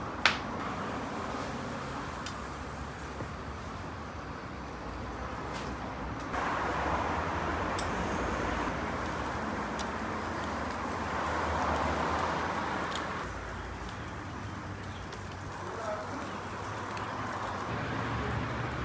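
A single sharp metal clank as an iron hook knocks against the iron rods laid across a tandoor's mouth, followed by a steady background din.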